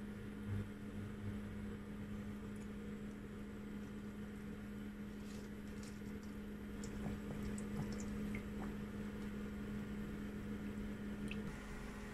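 Oil frying in a pan on an induction hob, under the hob's steady low hum. About five seconds in, a disc of donut dough is in the hot oil, and scattered crackles and pops of frying follow for a few seconds.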